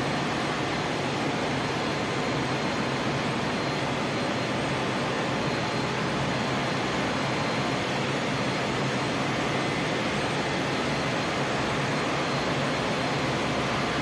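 Steady, even rushing roar of machinery and ventilation in a ship's engine control room, with no change in level.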